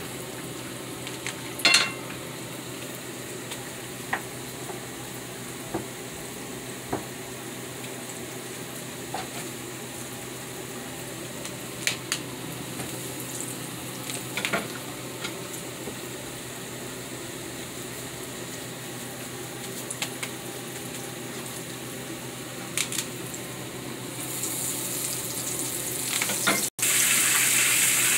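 Hot oil sizzling steadily as flour-dusted cassava balls deep-fry in a pan, with a few light knocks of a cooking utensil against the pan. Near the end, after a brief cutout, the sizzle is louder and hissier.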